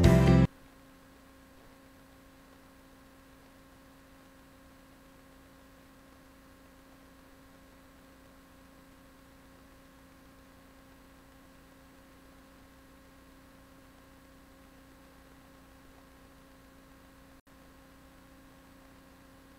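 Guitar background music cuts off about half a second in, leaving a faint steady hum made of a few held tones, with a momentary dropout near the end.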